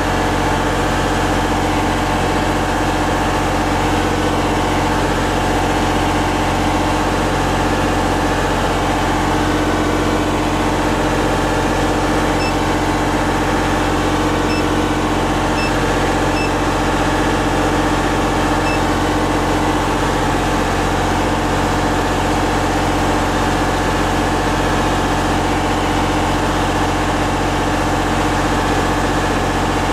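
Miller 400D welder generator's diesel engine running steadily, carrying a light load of about 15 amps. A few short beeps come about halfway through.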